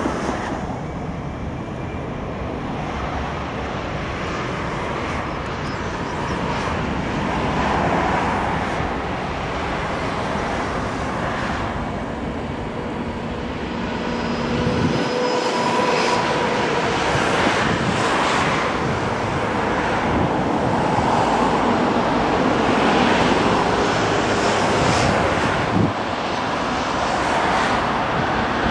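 Airbus A319 airliner's twin jet engines running at low power as it taxis and lines up on the runway: a steady jet rumble with a faint whine, growing a little louder in the second half.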